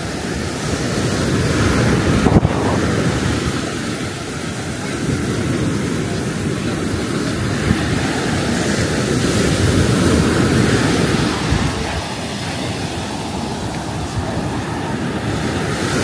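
Sea waves breaking and washing ashore, swelling and easing twice, with wind rumbling on the microphone. There is a short bump about two and a half seconds in.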